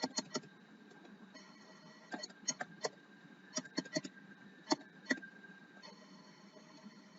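Computer keyboard keystrokes: sharp clicks in irregular short runs and single taps, over a faint steady hum.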